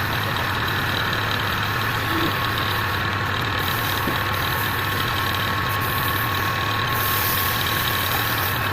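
Wood lathe running steadily: a constant motor hum with a thin, steady high whine over it.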